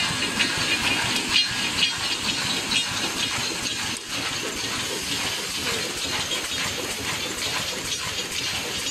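Poultry cage wire mesh welding machine running: a steady hiss with regular sharp clacks about twice a second, fading into the hiss after a few seconds.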